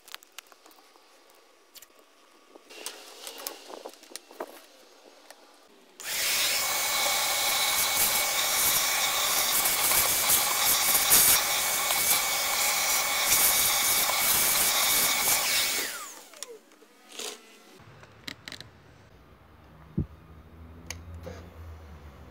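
Wet/dry shop vacuum running steadily for about ten seconds, its hose sucking dirt out of the open airbox of a Honda CBR600RR, then switched off and stopping abruptly. Light clicks and handling noises come before and after it.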